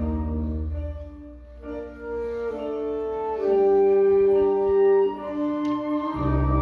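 Symphonic wind band playing slow held chords. The low notes fade out about a second in, then woodwind and brass notes enter one after another, and a strong low chord comes back in near the end.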